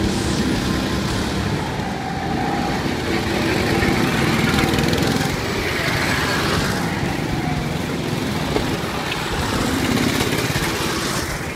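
Go-kart engines running as karts drive past on a kart track, the sound swelling as a kart comes close about four to five seconds in and again near ten seconds.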